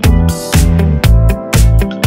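Background music with a steady beat, about two beats a second, over a bass line.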